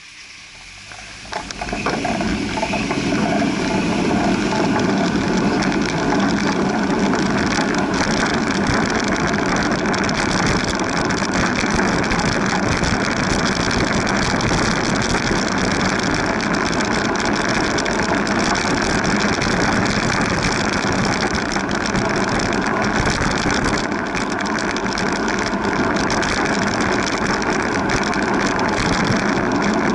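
Wind and road noise rushing over the microphone of a camera on a moving bicycle: quiet while the bike stands still, then rising within the first few seconds as it pulls away and holding steady as it rides. Light mechanical ticking and rattling from the bicycle runs under it.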